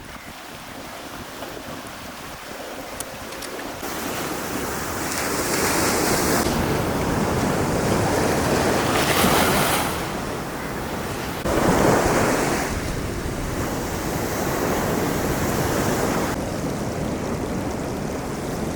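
Sea waves breaking on a beach, the surf noise swelling and falling back several times, with wind buffeting the microphone.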